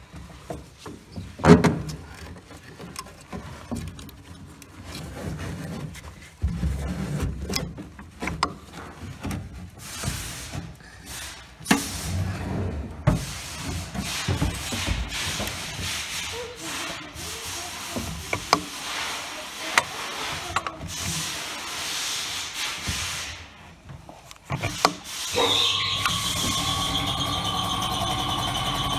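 Workshop handling noises: scattered knocks, clicks, scrapes and rubbing. Near the end a steady mechanical running sound with a constant high whine sets in and keeps going.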